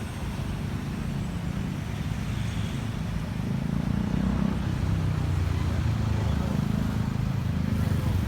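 Steady low engine and road rumble of a moving vehicle, growing a little louder about three seconds in.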